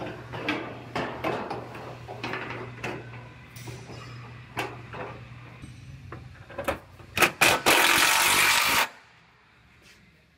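Sheet-metal body parts and tools knocking and clattering, then a cordless drill blipped twice and run for about a second and a half as it bores a small alignment hole through the rocker panel's sheet metal. The drilling is the loudest sound and stops abruptly.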